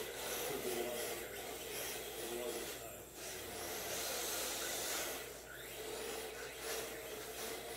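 1/10-scale RC drift cars with hard plastic tyres sliding sideways on smooth concrete, making a rasping hiss that swells and fades as the cars drift through the corners.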